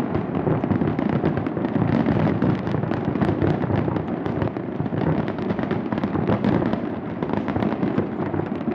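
Large fireworks display going off: a dense, continuous barrage of overlapping bangs and crackling with no pause.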